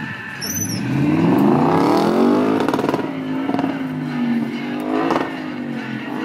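Race car engine revving up in a long rising sweep, then holding at high revs as the car accelerates across the course, with a few sharp cracks along the way.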